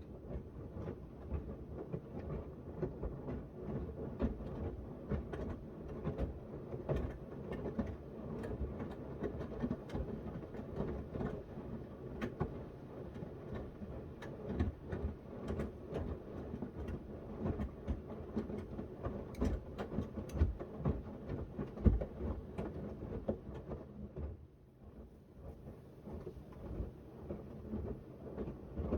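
Miele W1 front-loading washing machine turning its drum during a wash cycle, a small load of shirts tumbling with a rumble and irregular soft thuds. It goes briefly quieter about three-quarters of the way through, then picks up again.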